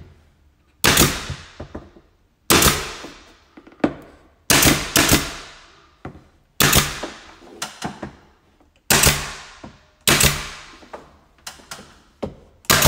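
Porter-Cable nail gun firing nails into a crown molding miter joint: about ten sharp shots at irregular intervals of roughly half a second to two seconds, each followed by a short fading hiss.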